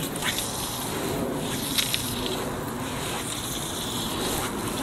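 Steady hiss of outdoor background noise, with a couple of faint ticks a little over a second in.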